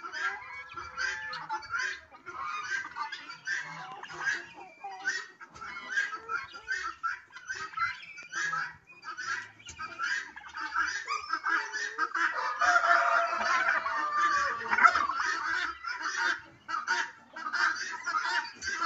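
A flock of chickens clucking and calling, many short calls overlapping without a break, growing denser and louder for a few seconds past the middle.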